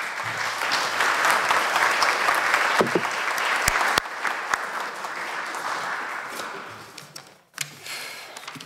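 Audience applauding, the clapping dying away about seven seconds in.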